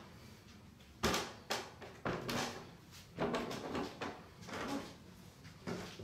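Footsteps going up a flight of stairs and on along a hallway floor: a run of uneven thuds and knocks, roughly one every half second to second.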